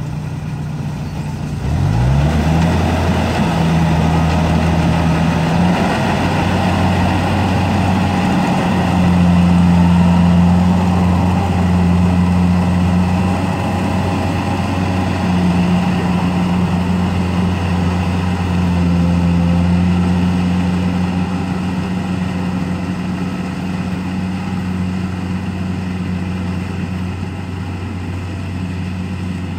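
Kubota DC-70G rice combine harvester's diesel engine running under harvesting load, revving up about two seconds in and then running steadily. It fades slowly in the last third as the machine moves away.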